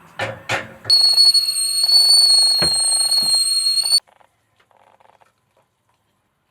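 Two quick swishes, then a loud, steady, high-pitched electronic alarm tone held for about three seconds that cuts off abruptly.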